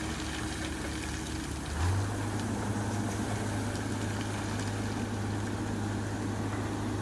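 An engine running steadily; about two seconds in its speed steps up quickly and then holds steady at the higher pitch.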